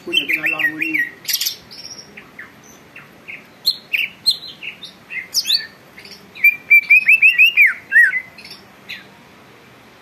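Greater green leafbird (cucak ijo) singing a varied song of rapid chirps, pitch sweeps and short whistled notes, with a fast run of loud slurred notes about six to eight seconds in.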